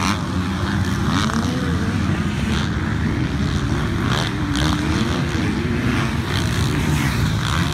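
Several motocross dirt bikes racing together, their engines revving up and falling back in overlapping rising and falling pitches as they take the jumps.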